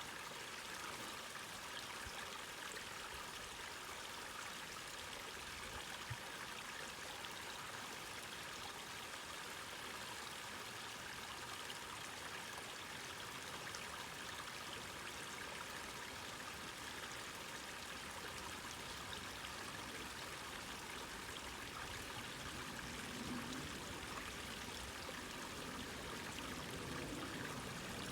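Distant small waterfall and creek, a steady rush of running water. A low rumble begins to build near the end.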